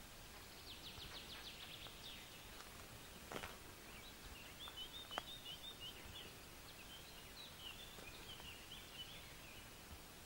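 Faint birdsong in a forest: a quick trill of about ten high notes, then a longer run of twittering, warbled phrases, over a faint hiss of background noise. There are a couple of soft clicks in between.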